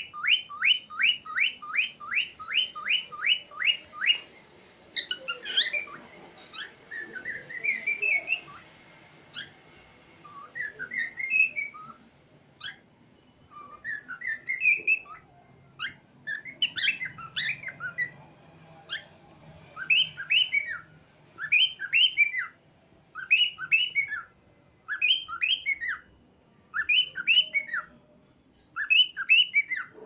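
Cockatiel singing and whistling. It opens with a fast run of short repeated chirping notes, about three a second, which stops about four seconds in. Then come rising and falling warbled whistles, and from about halfway on, short whistled phrases repeat every second or two.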